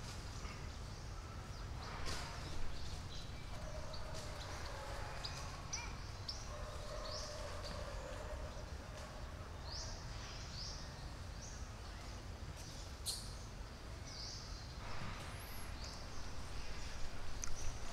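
Outdoor ambience: a steady low background rumble with a bird calling in short, quick rising chirps, a run of them through the middle.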